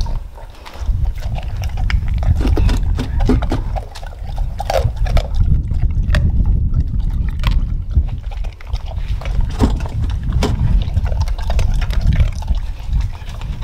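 A large dog lapping water from a stainless-steel bowl: rapid wet slurping clicks, over a steady low rumble.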